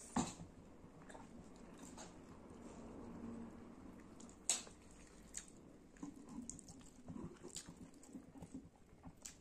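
Close, soft chewing and wet mouth sounds of a person eating skin curry and rice by hand, with a few sharp clicks about four seconds apart.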